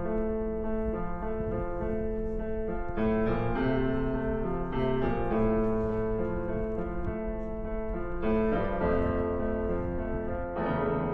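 Piano music, slow held chords that change every two to three seconds.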